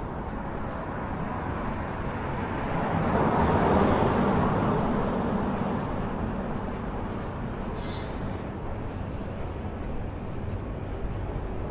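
A vehicle passing close by in a city street: a broad rushing noise that swells to a peak about four seconds in, then fades back into steady urban background.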